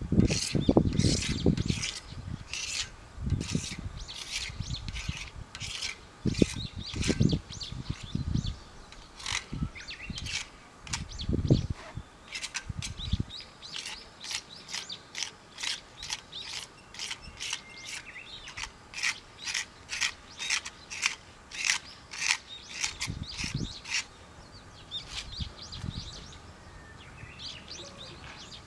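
A hand tool scraped back and forth along a swing's painted iron frame tube, stripping flaking water-based paint and rust, in quick scratchy strokes about two a second that die away near the end. A few dull knocks of the tool against the frame come in between.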